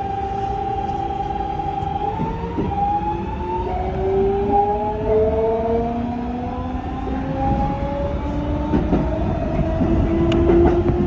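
Electric train's traction motors and inverter whining from inside the cab, several tones gliding upward again and again in steps as the train gathers speed, over a low running rumble. A few light clicks near the end.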